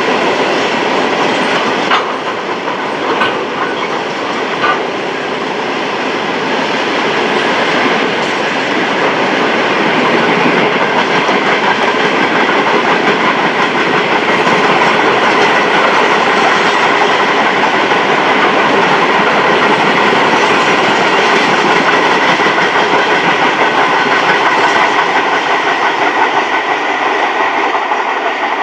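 Freight train of hopper wagons rolling past close by, a steady rumble of wheels on rail, with a few sharp clicks in the first five seconds.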